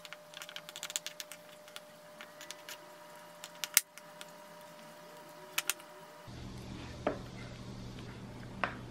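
Wooden stick stirring yogurt on a wooden plate, clicking and tapping against the wood: a quick run of light clicks in the first second and a half, then scattered sharper knocks, the loudest about four seconds in.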